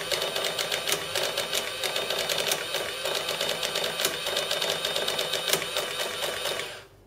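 Sharp XE-A102 cash register's built-in printer rattling off the end-of-day Z report in a fast run of clicks, stopping suddenly near the end as the report finishes.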